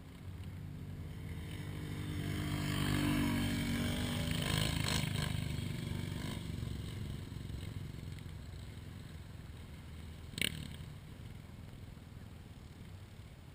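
ATV engine running, growing louder to a peak about three to five seconds in, then fading away. A single sharp click about ten seconds in.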